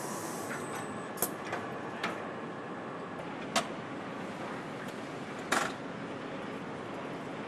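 Engine assembly line machinery: a steady hum of factory equipment with a few sharp metallic clicks and clanks, the loudest about three and a half and five and a half seconds in.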